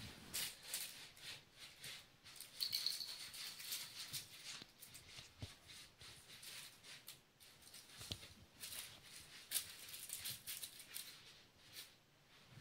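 Siamese kittens scampering and batting toy balls across carpet: soft irregular pattering and scuffling with brief rattling and crinkling of the toys.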